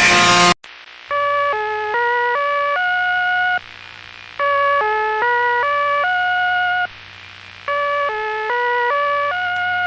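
A burst of loud music cuts off abruptly, then an electronic emergency alert chime plays. It is a five-note melody of clean beeping tones that dips, climbs and ends on a held higher note, played three times with short pauses, over a low steady hum.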